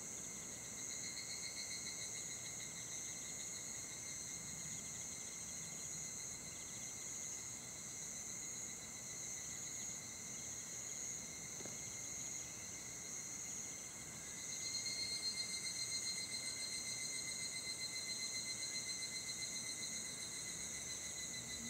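A chorus of singing insects: several steady high-pitched trills overlap. About two-thirds of the way through, a louder, pulsing trill joins in.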